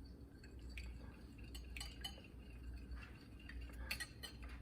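Faint, scattered clinks and taps of kitchen dishes and utensils, over a steady low hum.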